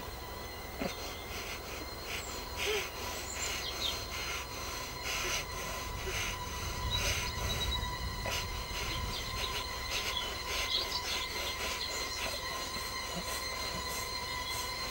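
A steady high-pitched ringing tone held without a break, over a low rumble, with scattered faint clicks and a few brief bird-like chirps.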